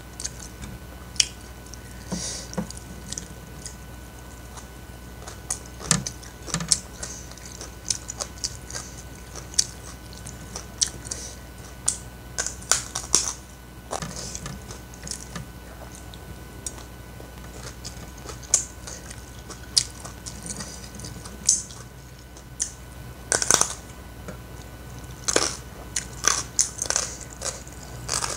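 Person chewing a hand-eaten meal of rice and greens, with lip smacks and sharp wet mouth clicks at irregular intervals.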